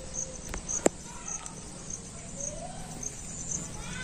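Insects chirping in a fast, even, high-pitched pulse. Two sharp clicks sound just before the first second; the second one is louder.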